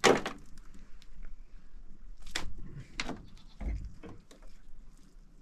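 A loud knock or bang at the very start, then three lighter knocks over the next few seconds, the last a dull low thump.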